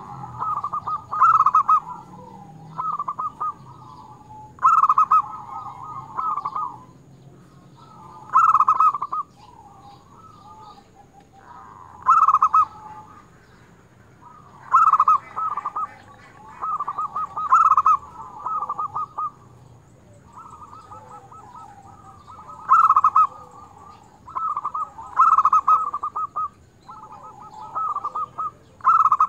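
Zebra dove (perkutut) singing vigorously: short, rapidly pulsed cooing phrases, each about a second long, repeated every one to three seconds with brief pauses between them.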